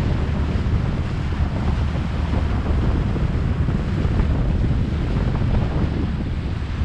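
Wind buffeting the microphone aboard a Yamarin 63 DC motorboat under way, mixed with the rush of water along the hull: a loud, steady noise without breaks.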